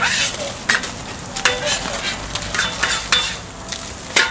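Metal spatula scraping and clinking on a flat-top steel griddle in a series of quick strokes, over the steady sizzle of a hamburger patty and an egg frying.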